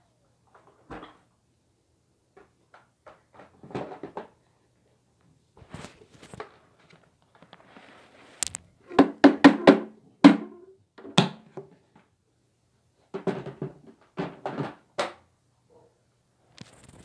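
Debris clattering out of a Shark vacuum's clear dust cup as it is emptied onto carpet, in irregular bursts of knocks and rattles that are loudest about halfway through, with another spell a few seconds later.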